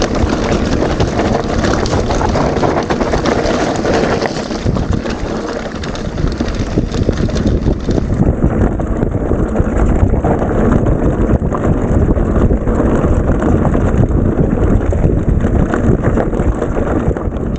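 Loud wind rushing over the microphone of a camera riding on a mountain bike in motion. Tyre noise and frequent short knocks and rattles come from the rough track.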